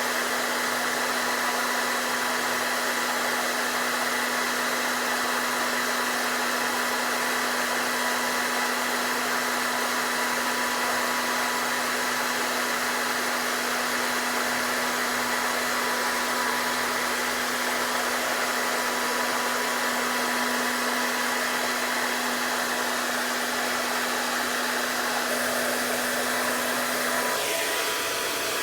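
Hair dryer blowing steadily on a dog's coat: a constant airy rush with a steady motor hum. Near the end the hum cuts out and the blowing sound changes.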